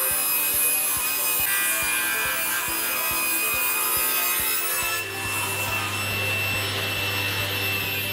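Table saw ripping a long taper cut through a thick softwood board, the blade running steadily through the wood with a continuous sawing and rubbing noise. A deeper hum joins in about five seconds in.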